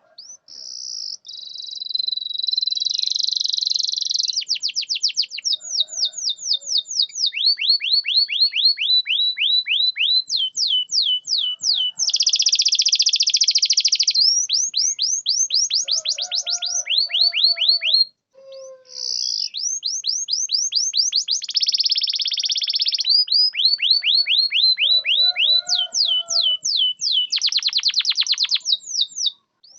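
Domestic canary singing a long, loud song of rapid trills and rolls: runs of quick repeated sweeping notes alternating with dense buzzy rolls, with a short break a little past the middle.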